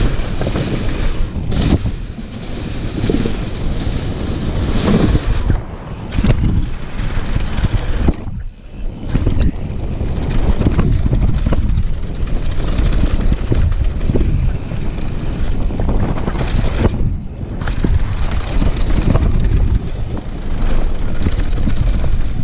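Downhill mountain bike ridden fast, with wind rushing over the body-mounted camera's microphone and the knobby tyres rumbling and rattling over wooden boardwalk planks and then a dirt trail. The noise drops briefly twice.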